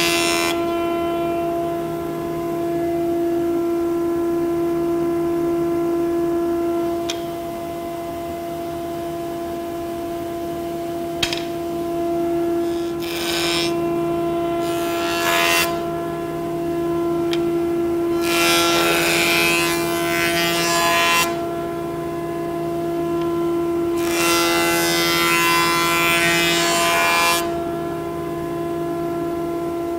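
Minimax FS41 Elite S jointer/planer running with a steady hum while short boards are jointed on it. There are two brief cuts a little before halfway, then two longer cuts of about three seconds each in the second half, with a few light knocks in between.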